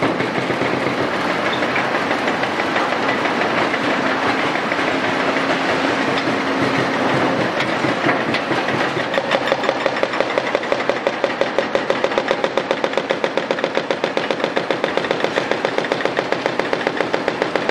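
Excavators breaking up concrete demolition debris: diesel engines and hydraulics running under load, with crunching and grinding of broken concrete. About halfway through, a rapid, even hammering of about five or six blows a second starts and carries on.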